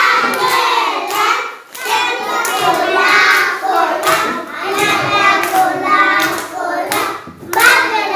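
Several young children singing together, with hand claps at intervals.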